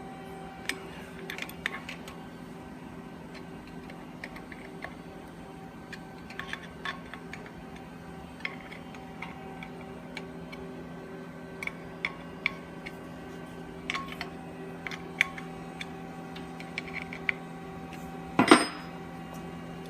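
Small wrench tightening tie-rod nuts a little at a time, giving scattered light metallic clicks at irregular spacing, with one louder knock near the end. A steady low hum runs underneath.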